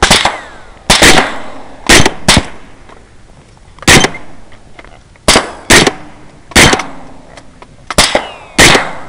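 Rifle shots fired in quick succession, about eleven in nine seconds at uneven spacing, some pairs less than half a second apart. Each crack is followed by a fading echo.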